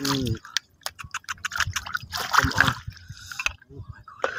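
Water splashing and trickling, with scattered small clicks.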